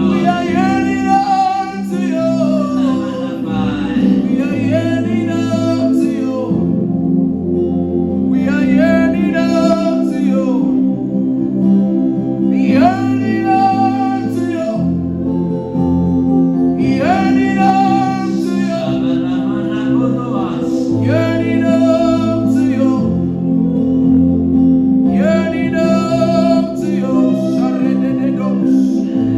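Gospel worship music: a voice singing drawn-out phrases, a couple of seconds each, over sustained chords and a bass line.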